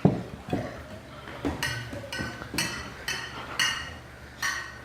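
Kitchen utensils against dishes: a knock, then a run of short scraping strokes about two a second.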